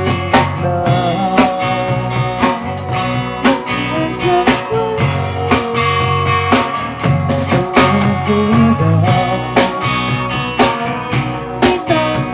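A rock band playing live: electric guitar, bass and drum kit with cymbals, recorded close up in a small room.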